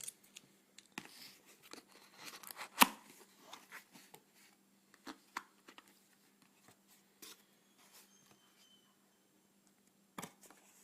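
A small cardboard camcorder box being opened and its packaging handled: tearing and crinkling with scattered clicks, and one sharp snap about three seconds in.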